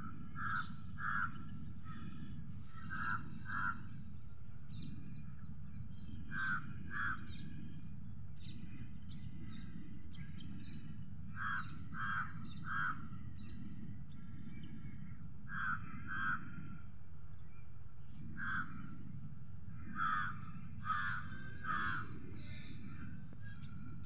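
A bird calling outdoors: short calls in pairs and threes, repeated every few seconds, over a steady low rumble.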